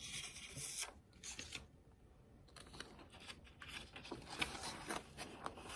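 Faint rustling and light clicks of a picture book's paper pages being handled, with several small ticks in the second half.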